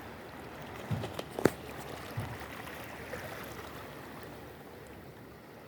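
Steady rush of water at a rocky shoreline, with a few dull knocks and one sharp click in the first couple of seconds, then easing off.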